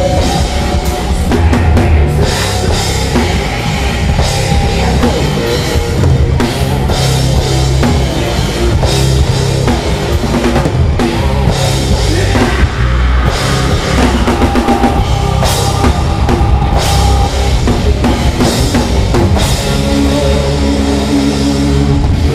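A live rock band playing loudly, with the drum kit and cymbal crashes to the fore over a dense full-band sound.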